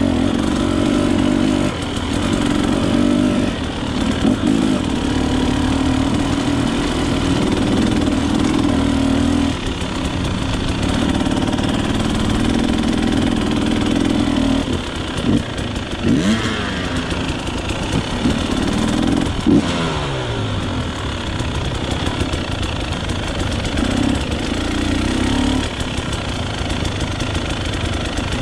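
Two-stroke Husqvarna dirt bike engine heard from on the bike while riding a trail, the throttle opened and shut again and again so the engine note rises and falls, with quick up-and-down sweeps in pitch around the middle.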